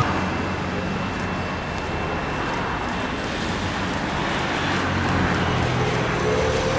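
Jet engines of a Boeing 787 airliner on landing approach: a steady rushing noise with a low hum underneath and a faint high whine for the first few seconds, growing a little louder toward the end as the aircraft comes closer.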